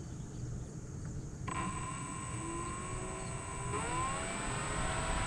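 Electric motor and propeller of a Flightline F4U Corsair RC model spooling up. A high whine with several tones starts suddenly about one and a half seconds in, climbs in pitch, and steps up again a couple of seconds later, over a steady low rumble.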